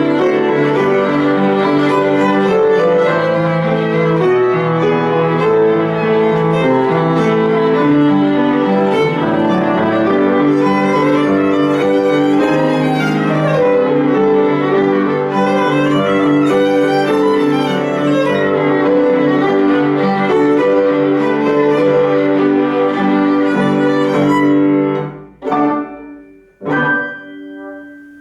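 Violin with piano accompaniment playing a fast, busy passage of running notes. Near the end the music drops away and closes with two short final chords about a second and a half apart, the last one left ringing.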